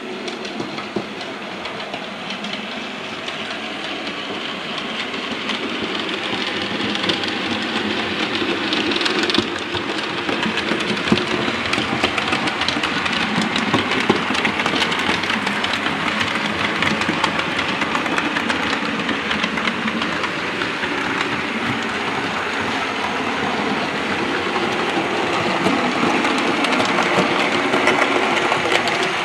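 Model railway trains running on the layout: the whir of small electric locomotive motors with wheels clicking over the rail joints. It grows louder over the first ten seconds or so, stepping up about nine seconds in.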